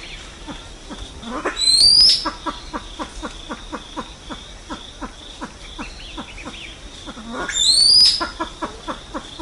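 Silver pheasant calling: a rapid run of short low clucks, about five a second, broken twice by a loud rising squeal.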